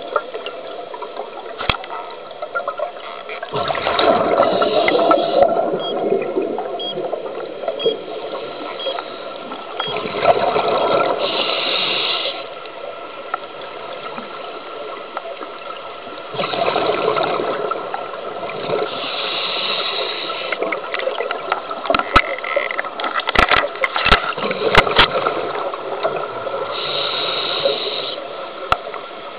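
Underwater water noise picked up through a camera's housing, swelling loud every several seconds and easing off between, with a few sharp clicks in the second half.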